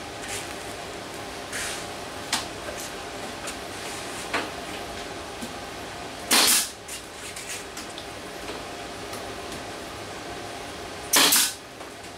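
Two short, loud hissing blasts of compressed air, about five seconds apart, over a steady fan hum. A few light knocks come from handling the wood.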